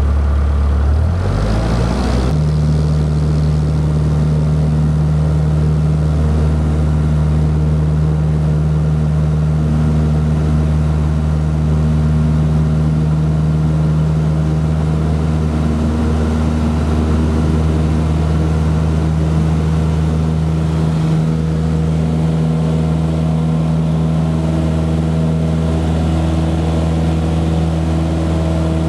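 Cessna 152's four-cylinder Lycoming engine and propeller heard from inside the cabin, rising in pitch as the throttle opens about two seconds in, then running steadily at full power through the takeoff roll and climb-out.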